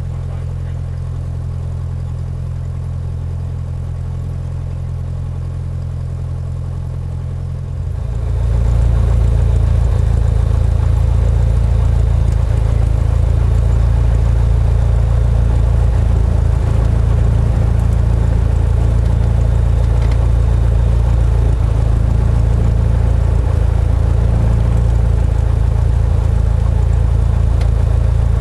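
Cessna 172's piston engine and propeller heard inside the cabin, running steadily at idle. About eight seconds in it is throttled up and then holds steady at the higher power.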